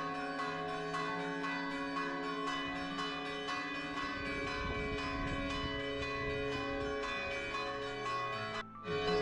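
Church bells pealing from a bell tower: several bells ringing together, struck several times a second so their tones overlap and hang on. The sound drops out briefly near the end, then the ringing goes on.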